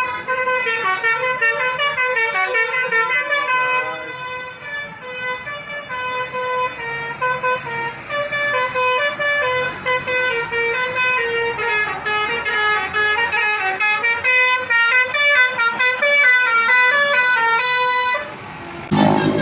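Bus basuri telolet air horn playing a fast melody of quickly changing notes, which stops about 18 seconds in. A louder, deeper noise starts right at the end.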